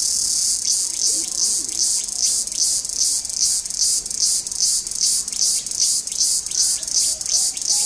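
A loud, high hissing pulse repeating evenly about twice a second, with a few faint, low dove coos about a second in and near the end.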